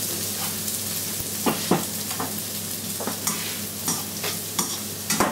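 Stir-fried noodles sizzling in a wok in melted butter on the pan's residual heat, the burner just switched off. A utensil knocks and scrapes against the wok a dozen or so times from about a second and a half in.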